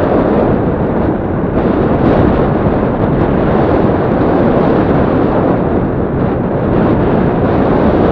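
Yamaha Crypton-X motorcycle running steadily as it is ridden off road, its engine mixed with heavy wind noise on the microphone.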